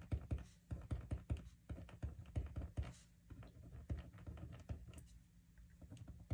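A pen writing on a planner sheet over a desk: quick, irregular taps and light scratches of the pen tip on paper, several a second.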